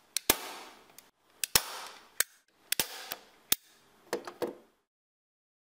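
Hand staple gun firing staples to fix the cloth-backed wool portrait: a quick series of sharp snaps, about ten, some in close pairs, with cloth rustling between them.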